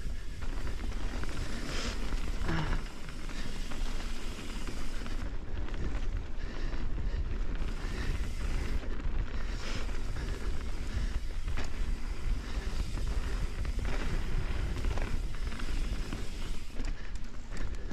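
Mountain bike descending fast on a wet dirt trail: steady wind rush over the microphone with tyre noise on the dirt, and the bike rattling with scattered sharp knocks as it goes over bumps.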